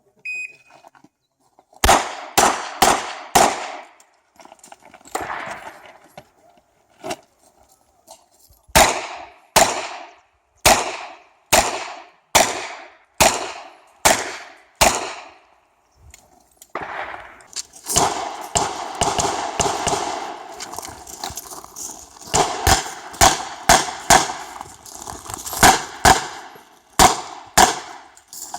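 Shot timer's start beep, then a Smith & Wesson 929 revolver firing .38 Short Colt on a shooting stage. The shots come in strings: a quick group of about four, two single shots, an evenly spaced run of about eight, then a denser, faster run of many shots near the end, with pauses in between.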